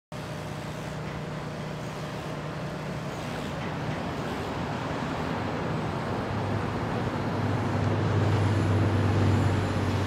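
Street traffic going by, with a heavy vehicle's engine humming steadily and growing louder over the second half.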